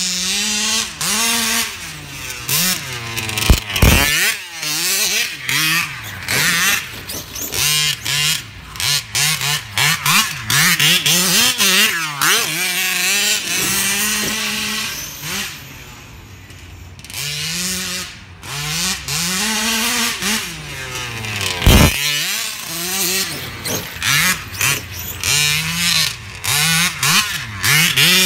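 Large-scale RC cars driving hard: their motors rev up and down in repeated bursts, the pitch rising and falling with each throttle blip. A heavy thump about 4 seconds in and another about 22 seconds in.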